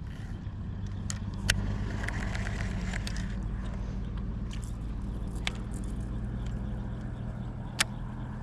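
An engine running steadily with a low hum, with two sharp clicks, one about a second and a half in and one near the end.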